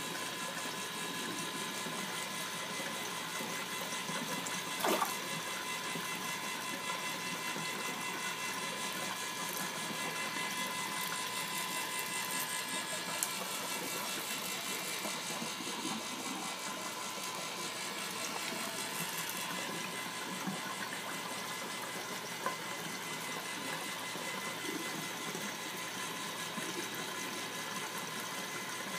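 A small electric motor humming steadily, a constant whine with a few even tones over a light hiss. There is one short knock about five seconds in.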